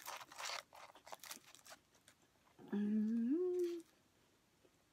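Paper food wrapper crinkling for the first second or two as food is picked up. Then, about midway, a woman's closed-mouth hum of about a second that steps up in pitch, like an "mm-hm", made while chewing.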